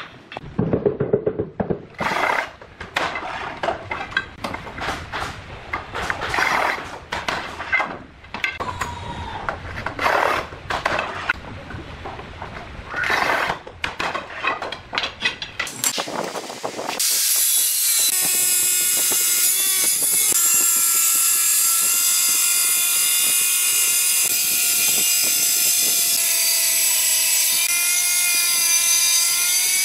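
A manual rail tile cutter scoring ceramic tile strips: a series of short scratchy strokes, each about a second long. A little past halfway, an angle grinder with a cutting disc starts running with a steady high whine, its pitch dipping briefly twice as the disc cuts into a ceramic tile strip.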